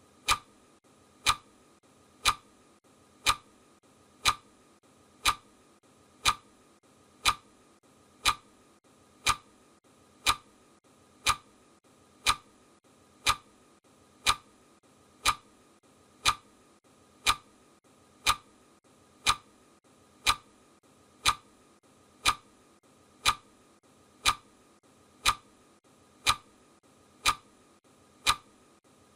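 Clock ticking, one sharp tick a second, over a faint steady hiss.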